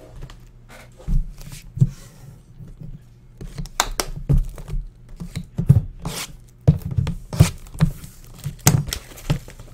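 Sealed boxes of trading cards being picked up, set down and stacked on a desk: a run of irregular knocks and taps.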